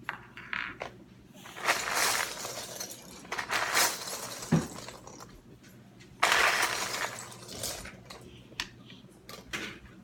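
Loose Lego pieces clattering and rattling as someone rummages through them, in three main bursts of about a second each with scattered clicks between.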